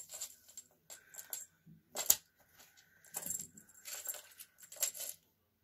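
A cat pawing and tugging at a fishing-rod toy caught among shoes and plastic clogs: a string of light clicks, taps and rustles, with one sharper knock about two seconds in.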